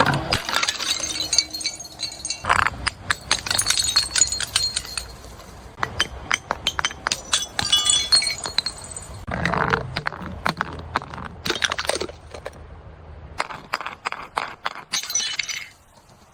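Glass bottles being smashed, a run of separate crashes with shards clinking and tinkling between them.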